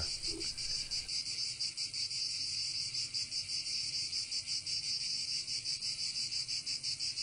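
Insects chirring in a steady, high-pitched chorus with a rapid, even pulse.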